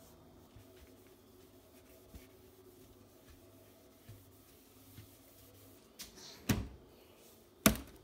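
Two sharp knocks about a second apart near the end, a hand and cloth bumping the dishwasher door while wiping it, over faint room tone with light wiping sounds.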